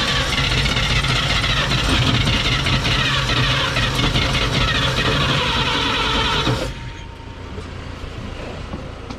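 1954 Chevrolet 3100's straight-six engine being cranked by the starter on a makeshift fuel supply, trying to fire. It cranks steadily for about seven seconds and then stops abruptly.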